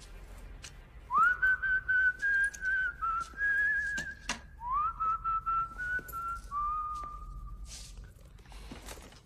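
A man whistling a tune in two long phrases, each opening with an upward slide, starting about a second in and fading near the end. A couple of sharp knocks fall around the middle.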